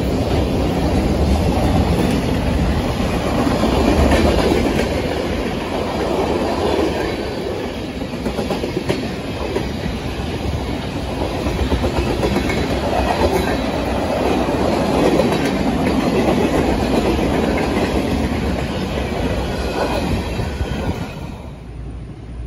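Freight train of covered hoppers, boxcars and tank cars rolling past: a steady rumble with wheels clacking over the rail joints. The sound cuts off abruptly about a second before the end, leaving a quieter background.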